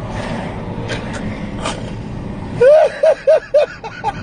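Loud laughter inside a moving car's cabin, over steady road noise: breathy laughing at first, then about two and a half seconds in a burst of four high-pitched "ha"s in quick succession.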